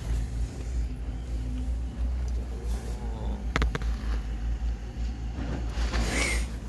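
Ford Transit van's diesel engine idling steadily, a low even rumble heard from the cab, with a couple of sharp clicks about three and a half seconds in and a brief hiss near the end.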